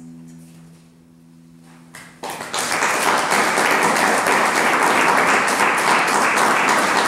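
The last held chord of a viola da gamba and lute fades away, then audience applause starts about two seconds in and continues, loud and steady.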